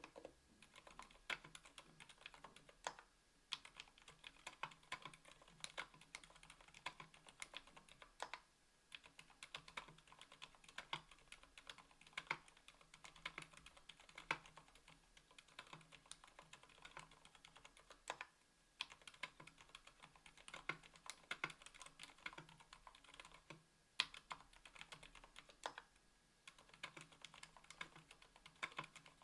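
Fast, continuous typing on a KBDfans Tofu 60% aluminium keyboard with stock Gateron Silent Black Ink linear switches (60 g) and GMK keycaps: a dense run of quiet, dampened keystrokes with a few louder strokes here and there.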